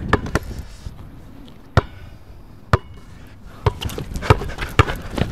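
A basketball dribbled on an outdoor hardcourt: single sharp bounces, about a second apart at first, then coming quicker near the end as the player drives.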